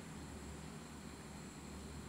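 Faint steady hiss and low hum with a thin, steady high whine: room tone with no distinct event.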